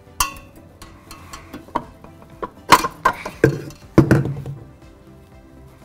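Stainless steel stand-mixer bowl and wire whisk attachment being unlatched and lifted off the mixer: a ringing metallic clink, then a series of clanks and knocks. The loudest knocks come about three to four seconds in.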